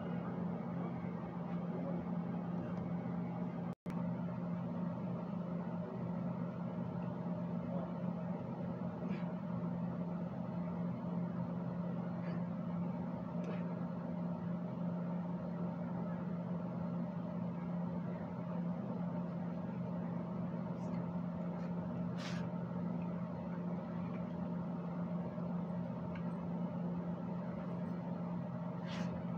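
A steady low machine hum, unchanging throughout, broken by a split-second dropout about four seconds in. Faint short sounds from the field show through it once or twice.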